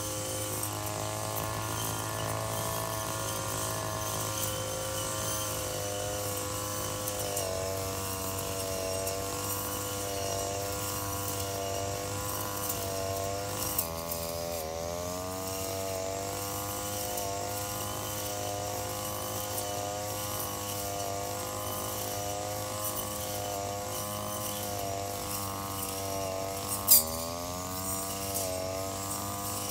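Engine-powered brush cutter running at high speed while cutting grass. Its pitch drops sharply and climbs back twice, each time just after a sharp click; the louder click comes near the end.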